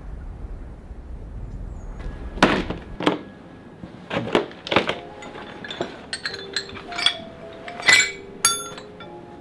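A run of sharp knocks and ringing metallic clinks as steel stone-carving chisels and tools are handled and picked out of a toolbox. Soft music comes in about halfway.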